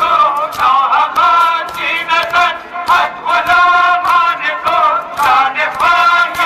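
A group of men chanting a noha, a Shia lament, together in unison. They hold long notes that slide up and down between short breaths.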